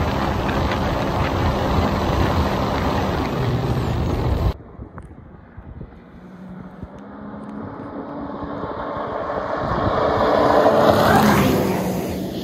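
Personal watercraft engine running loud, cut off abruptly about four and a half seconds in. Then a jet ski approaches, growing steadily louder, passes by near the end and fades away.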